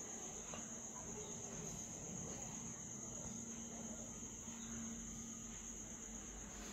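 Faint, steady high-pitched trill of crickets, unbroken throughout.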